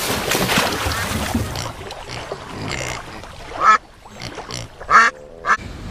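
A car splashing into a pond, a burst of spraying water that dies down, then a duck quacking twice near the end.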